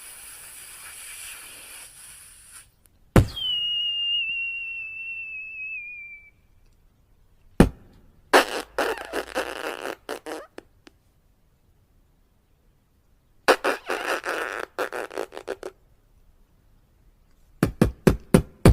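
A person imitating fireworks with his mouth: a hiss, then a sharp pop and a whistle that falls slightly in pitch over about three seconds, then a single bang followed by a spell of crackling. After a pause comes a second spell of crackling, and near the end a quick run of pops.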